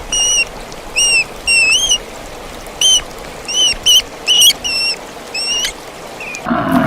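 A small animal's short, high-pitched chirping calls, about ten of them with gaps between, each rising then falling in pitch. Just before the end a lower, drawn-out sound starts.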